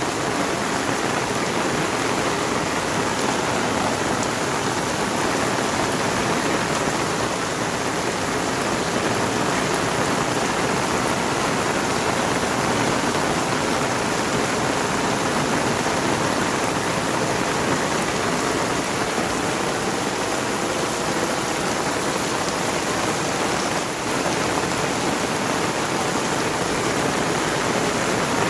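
Heavy rain falling steadily, pattering on surfaces.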